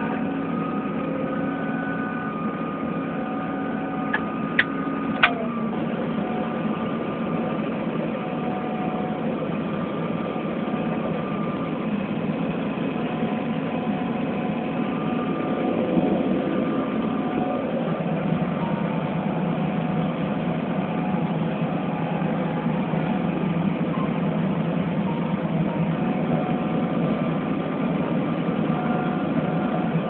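A John Deere C670 combine harvester running steadily while cutting wheat, heard from inside the cab as a continuous machine drone. A few sharp clicks come about four to five seconds in, just as a steady hum steps down in pitch.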